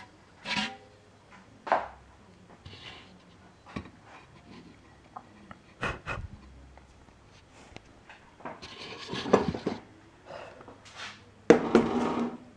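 Scattered handling noises: brief knocks and taps with rubbing and rustling, and a louder stretch of rustling near the end.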